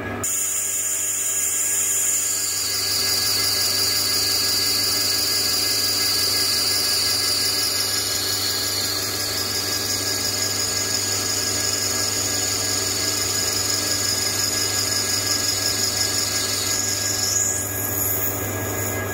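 Metal lathe turning a steel hydraulic cylinder rod with a carbide insert, cutting steadily over the machine's constant hum. A high-pitched cutting whine settles lower about two seconds in and glides back up near the end.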